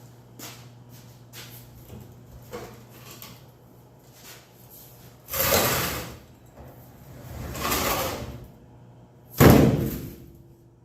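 Steel refrigerator cabinet being shifted: two scraping, sliding noises about a second each, then one loud bang with a brief metallic ring as it comes down.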